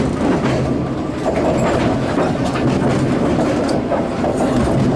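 Sagano Scenic Railway sightseeing train running along the track, heard from inside a carriage: a steady rumble of wheels on rails with scattered clicks over the rail joints.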